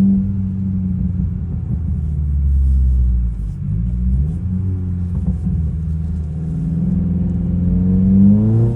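Straight-piped Subaru WRX (VB) turbocharged 2.4-litre flat-four running with a deep exhaust rumble at low-to-middle revs. Its pitch climbs near the end as the car accelerates.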